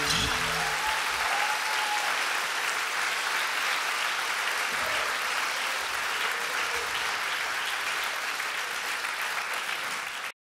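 A theatre audience applauding steadily after an acoustic guitar song, the final guitar chord dying away under the first clapping. The sound cuts off abruptly shortly before the end.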